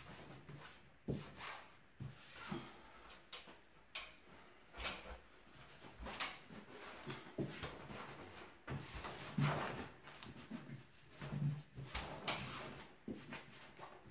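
Irregular rustling and crinkling of a large sheet of self-adhesive wallpaper being handled and pressed onto a ceiling, with scattered light knocks.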